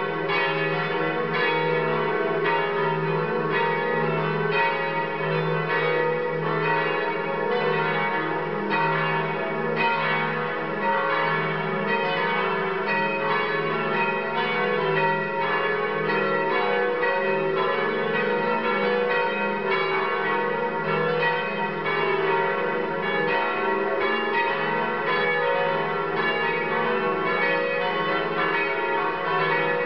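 Several cathedral bells ringing together in a continuous peal, strokes following one another several times a second and overlapping, over a steady hum of their lingering low tones.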